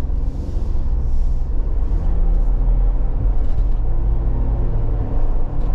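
Inside the cab of a 2023 Ford Bronco Wildtrak under way: the EcoBoost V6 running steadily, under a loud, low rumble of road noise from the Sasquatch package's big all-terrain tires.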